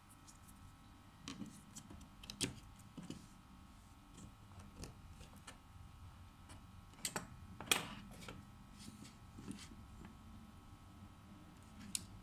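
Faint, scattered clicks and taps of small parts and tools being handled on a workbench during an iPhone 6s Plus battery replacement, over a low steady hum.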